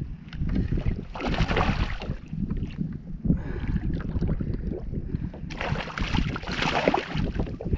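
Wind buffeting the microphone with a constant low rumble, with water lapping around a kayak. Two louder rushing hisses come about a second in and again near the end.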